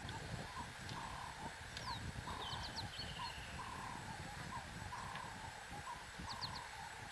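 Wild birds calling: a steady series of short calls about twice a second, with a few high, quick falling chirps, over a low rumbling background noise.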